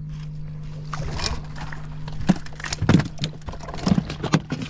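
Water slapping and knocking against a fiberglass boat hull in a run of uneven thumps and splashes, over a steady low hum.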